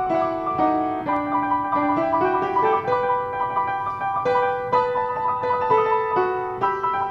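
Piano music: a tune of many short, quickly struck notes, the melody stepping up and down over a repeated higher note.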